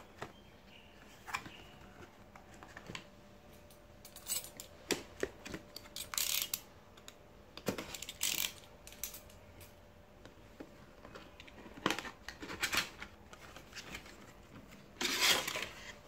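A cardboard box being handled and opened with a utility knife: scattered taps and clicks, short scrapes as the blade cuts, and cardboard rustling, with the longest scrape near the end as the flaps and insert come open.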